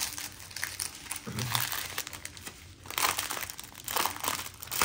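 Clear plastic bag crinkling and rustling as it is opened and handled, in irregular bursts that are busiest near the start and again in the last couple of seconds.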